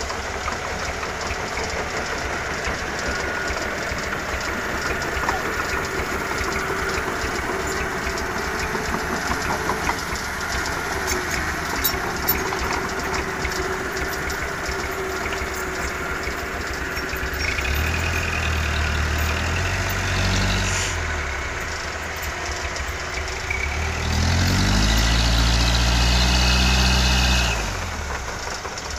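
Hino Dutro dump truck's diesel engine idling with a steady knocking beat, revved up twice in the second half, the second rev longer and louder before it drops back to idle.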